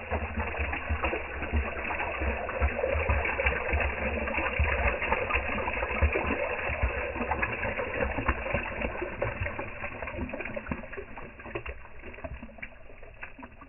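A motorized water puller pumping rainwater out of a flooded golf hole cup: a steady motor hum with gurgling, bubbling water, gradually getting quieter toward the end.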